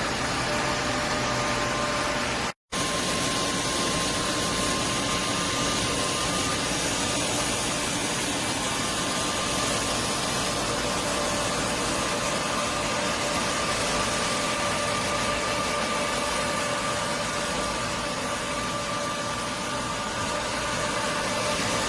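Wet-and-dry floor vacuum's motor running steadily, a loud even rush of air with a thin high whine over it. The sound cuts out completely for a moment about two and a half seconds in, then carries on unchanged.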